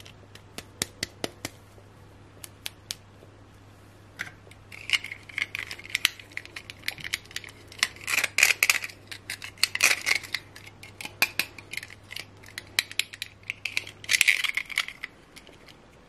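Small plastic doll and a soft plastic snap-on gown handled close up: a few sharp plastic clicks in the first three seconds, then rubbing, crinkling and clicking as the gown is fitted onto the doll. A faint low hum underneath stops near the end.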